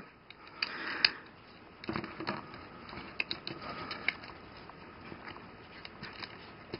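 Faint handling of a plastic Transformers action figure: scattered small clicks of its parts and joints being moved and set, with light handling noise.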